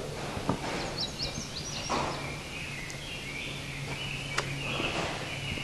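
Faint high bird chirps, a few about a second in and more later, over steady background noise with a low hum and one sharp click.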